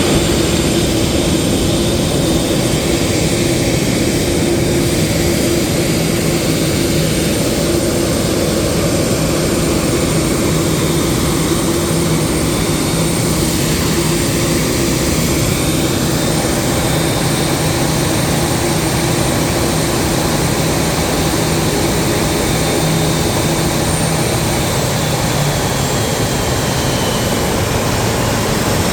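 Jet airliner engines running at idle: a steady, loud rumble with a whine that holds without a break.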